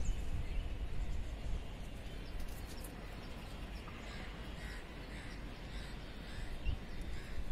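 Wind rumbling on the microphone, easing off after the first second or two, with birds calling faintly and repeatedly in the background from about halfway through.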